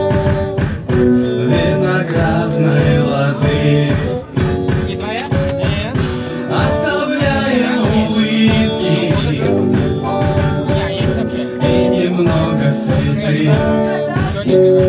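Live pop-rock cover: two electric guitars through small combo amps over a backing track of programmed drums and bass guitar, with male vocals sung into the microphones and a steady drum beat throughout.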